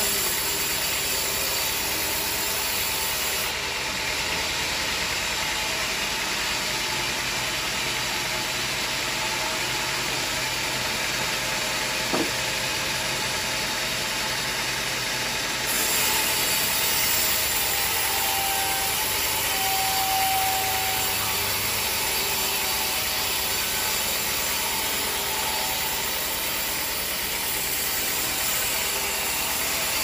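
Sawmill band saw cutting lengthwise through a teak beam: a steady, even cutting noise, with one sharp click near the middle.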